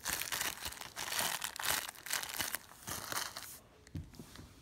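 Clear plastic packaging around a squishy toy crinkling as it is handled and squeezed, stopping about three and a half seconds in. A soft knock near the end.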